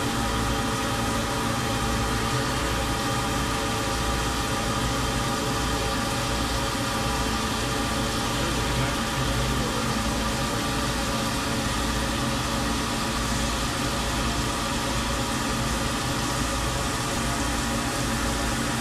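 Tormach 770 CNC mill's spindle running steadily at about 2,300 RPM with a 3/8-inch end mill, under an even hiss of coolant spray. The tool is making its opening laps of an adaptive toolpath around a Hastelloy X block, at most grazing the corners before the full cut engages.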